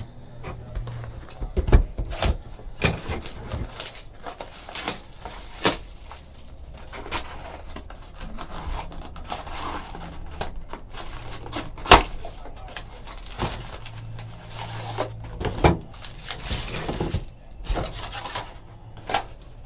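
Irregular clicks, taps and light rustles from trading card packs and cards being opened and handled on a table, with a faint low hum behind.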